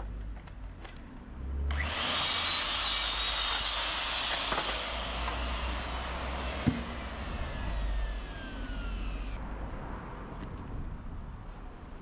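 A saw cutting through timber. The cut starts abruptly about two seconds in, runs steadily and fades out after about nine seconds, with a sharp click partway through.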